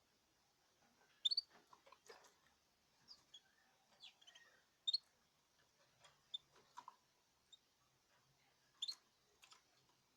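Caged birds giving scattered short, high chirps mixed with small clicks and taps, faint, about eight in all with gaps between.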